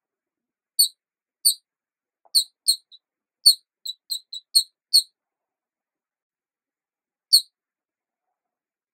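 About a dozen short, high-pitched squeaks in quick irregular clusters during the first five seconds, then one last squeak after a pause of about two seconds, with complete silence between them. There is no sound from the rolling ball itself.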